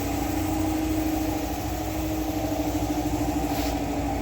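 Steady mechanical hum of a machine running, with a slight fast, even flutter and no clear change in speed.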